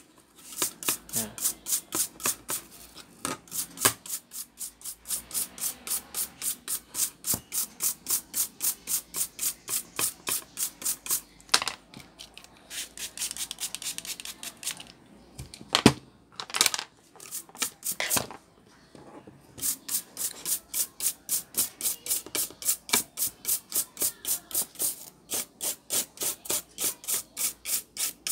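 Toothbrush bristles scrubbing a graphics card's circuit board, at about three strokes a second. The scrubbing stops for a while in the middle, where there are a few sharp knocks, then starts again.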